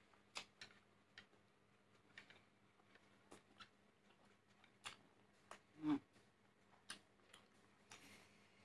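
Near silence broken by scattered soft mouth clicks and smacks from chewing, with a brief hum-like vocal sound about six seconds in and a short breath near the end.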